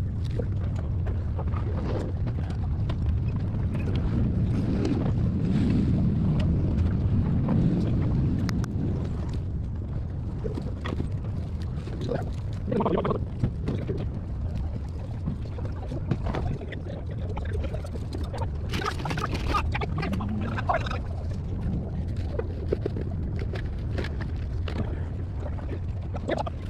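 Wind rumbling on a handheld camera's microphone, with small handling knocks and rustles and a couple of brief stretches of indistinct chatter from people close by.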